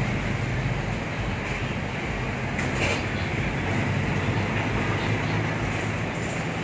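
Steady street traffic noise: a constant low engine rumble with road noise and no breaks.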